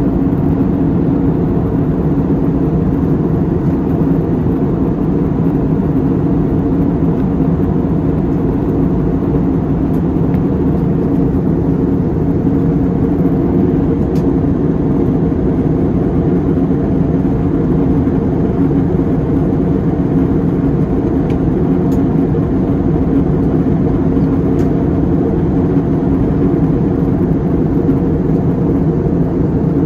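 Jet airliner cabin noise in cruise: a steady, unbroken drone of the engines and the air rushing past the fuselage, heard from inside the cabin at a window seat.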